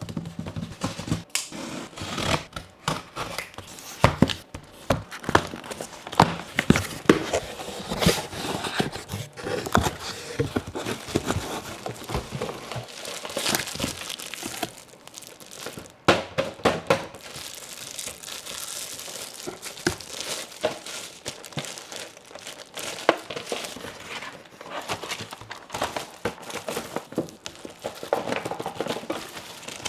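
Packaging being handled and torn open by hand: irregular crinkling and crackling of wrapping with tearing noises and many sharp clicks and knocks.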